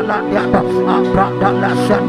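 Instrumental worship music with sustained held chords and a quick run of short plucked or keyed notes over them.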